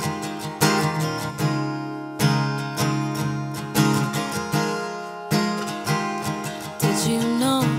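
Acoustic guitar strummed in a steady rhythm, a strong chord stroke about every three-quarters of a second, with no singing.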